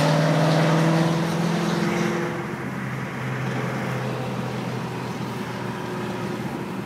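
Pontiac GTO's LS2 V8 with headers and a custom cat-less exhaust, loud under throttle; its note drops a little in pitch and fades about two seconds in, leaving a steady road rumble.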